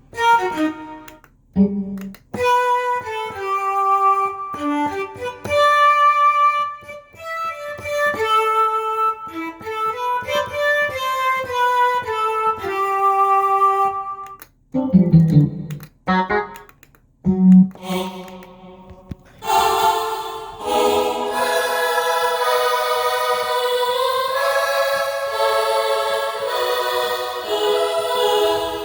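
Korg X3 synthesizer playing its factory sounds: a run of separate notes and chords with brief pauses, then from about 20 seconds a bright, full chord held steadily.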